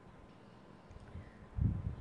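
Quiet table-top handling, then a dull, low thump about one and a half seconds in: fingers pressing a wet clay strip down onto the edge of a board on the table.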